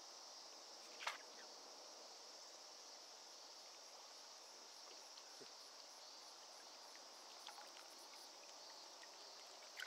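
Faint, steady high-pitched chorus of summer insects, with one short click about a second in.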